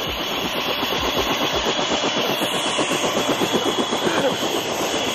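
Helicopter running on the pad: a steady turbine whine over the fast, even beat of the rotor blades, growing slightly louder.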